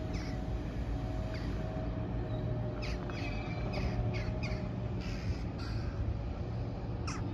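Birds calling in short, falling calls, several in quick succession through the middle and one more near the end, over a steady low background rumble.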